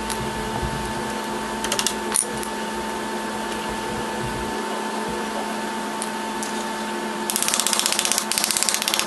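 Steady background hum, with a few light metal clicks about two seconds in and a quick run of rapid clicking near the end, from hand work on a golf cart's front wheel hub and spindle.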